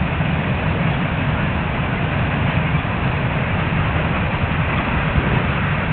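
Wind buffeting the microphone: a steady low rushing noise with constant flutter.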